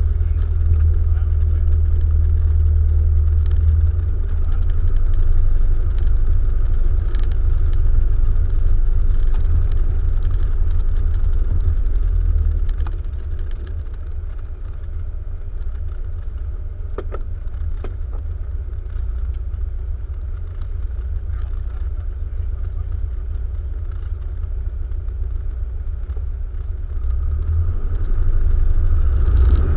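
Piper PA-28 Archer II's four-cylinder Lycoming engine and propeller running at low power, heard inside the cabin as a steady low rumble. The engine note drops back about 13 seconds in, then builds again near the end.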